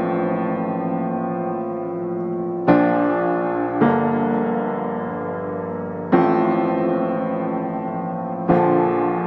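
Slow background piano music: sustained chords that ring and fade, with a new chord struck four times.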